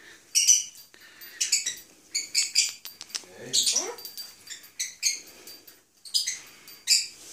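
White cockatoo chattering in a quick string of short, high, squeaky calls, with one lower sliding call a little past the middle.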